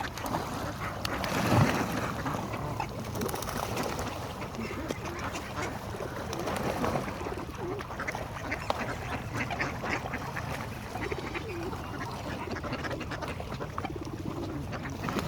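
A flock of birds being fed, calling over one another in a busy, continuous chorus, loudest about one and a half seconds in.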